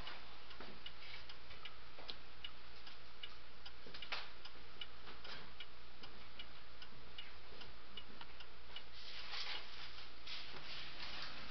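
Crystal regulator mantel clock's movement ticking with a steady, even beat, the clock running in good working order. There is a sharper click about four seconds in and a louder burst of noise near the end.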